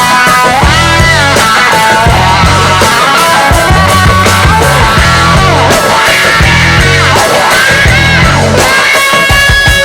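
Background rock music with a steady, pulsing bass and a bending lead melody that could be a voice.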